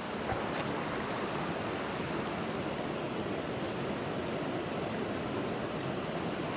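Mountain river rushing steadily, an even wash of water noise.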